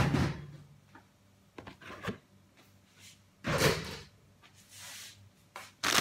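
Plastic zip-lock bags of blanched okra being handled on a wooden table: a few dull knocks with plastic rustling, the loudest about three and a half seconds in.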